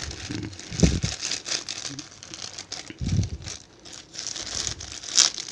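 Small clear plastic bags of electronic components (resistors, diodes) crinkling and rustling irregularly as they are handled, with a couple of soft knocks and a sharp crackle near the end.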